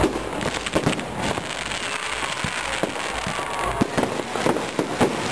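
Fireworks display: aerial shells bursting in a rapid, continuous barrage of bangs over crackling, with the loudest bangs about four and five seconds in.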